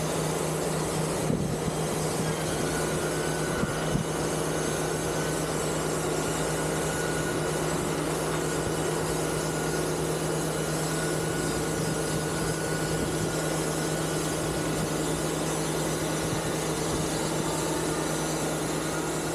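Portable sawmill machinery running steadily: a constant engine drone with an even rushing noise over it.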